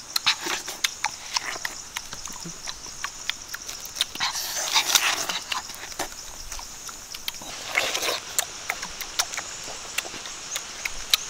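A dog-like animal calling in noisy bursts, twice louder, about four and eight seconds in, over a steady high hiss and many small sharp clicks.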